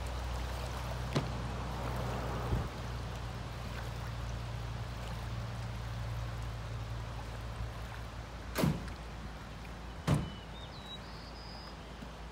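River water running and lapping at the bank, under a low steady hum that fades out about two-thirds of the way through. Near the end come two sharp knocks about a second and a half apart.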